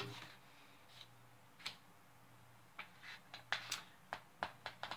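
Faint short clicks and taps of hands handling a picture book: a couple of single clicks, then a quicker run of about ten over the last two seconds.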